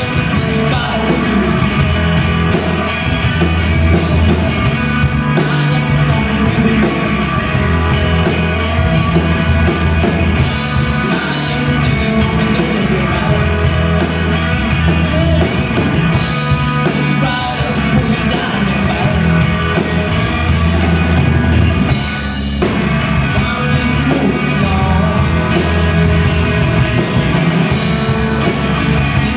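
Live rock trio playing a blues-tinged alternative rock song on electric guitar, electric bass and drum kit, with a brief break about three-quarters of the way through.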